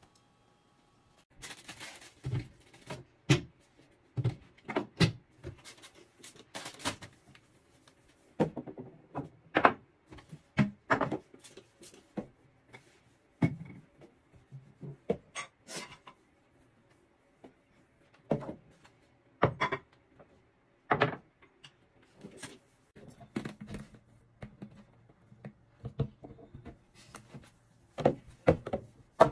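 Irregular knocks, clunks and light clatters of objects being handled and set down on a bathroom counter while cleaning, a few to several a second in clusters with short pauses between.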